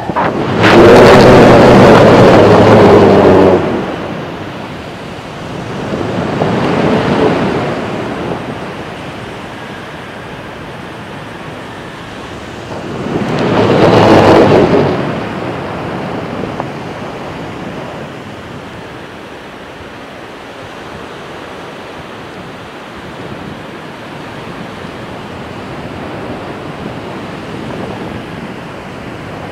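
Wind buffeting the microphone of a kite-borne iPod camera: a steady rush with three loud gusts, the first about a second in, the next around seven seconds and the last around fourteen seconds. Faint surf underneath.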